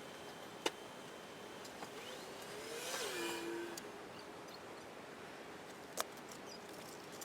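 A motor whine that rises in pitch, swells briefly and then drops, about three seconds in, over a faint steady hum. Two sharp knocks sound, one near the start and one near the end.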